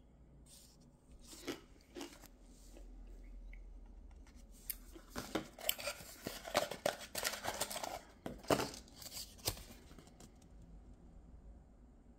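A red plastic toy capsule and a folded paper leaflet being handled: a few light clicks, then a few seconds of dense crinkling and rustling that fades near the end.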